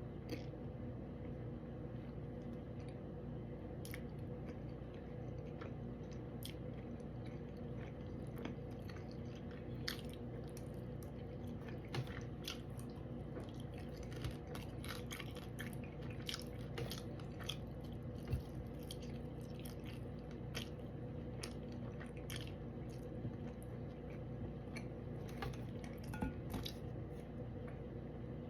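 A person chewing fish close to the microphone, with many small wet clicks and crunches of mouth sounds over a steady low hum.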